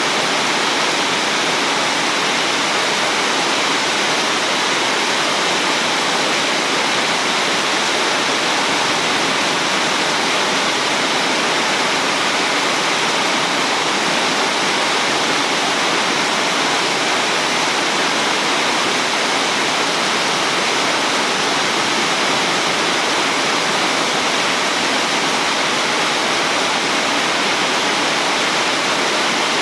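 Heavy rain pouring down, a steady dense hiss that holds even throughout, with no thunderclap.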